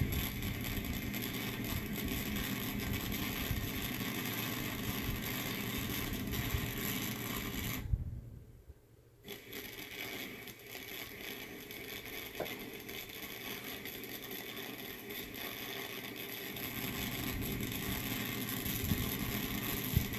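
Recorded welding sound effect played through a small speaker: a steady crackling hiss that breaks off briefly about eight seconds in, then resumes.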